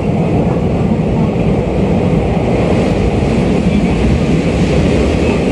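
Running noise inside a Tokyu 2020-series subway car travelling through a tunnel: a steady, loud rumble of wheels on rail.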